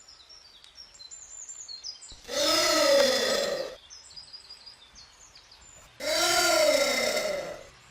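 Giant anteater calling twice, each a harsh call about a second and a half long whose pitch rises and then falls.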